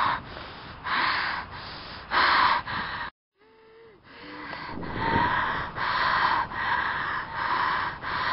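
A person breathing heavily close to the microphone: a run of rapid, loud gasping breaths in and out, broken by a short gap a little after three seconds.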